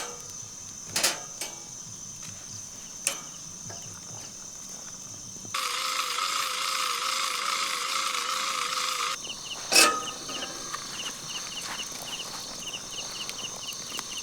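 Forest insects calling: a steady high buzz with a fast, rhythmic chirping pulse, broken by a few sharp knocks or pops. For about four seconds in the middle a loud hiss cuts in and stops abruptly.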